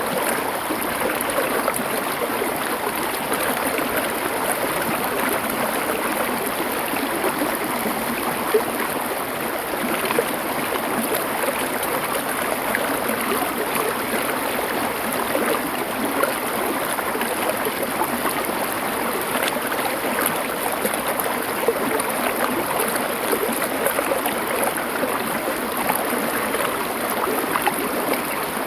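Stream water flowing over stones: a steady rush with small splashes and trickles now and then.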